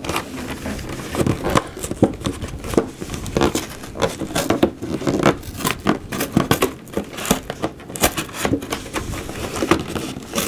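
Cardboard box being torn apart by hand: an irregular run of sharp rips and crackles as the card splits and the flaps are wrenched open.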